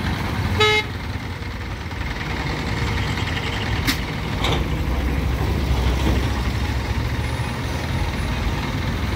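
Diesel engine of an Escort Hydra pick-and-carry crane running close by as it drives up, a low steady rumble that swells slightly mid-way. A vehicle horn toots briefly near the start, and two sharp clicks come about four seconds in.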